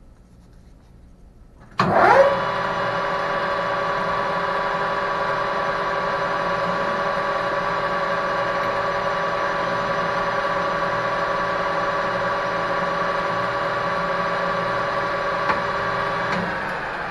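Metal lathe switched on about two seconds in: the spindle motor whines up to speed, then runs steadily with a gear whine while the tool takes a power-fed facing cut across the end of the part. Near the end the sound drops and begins to wind down.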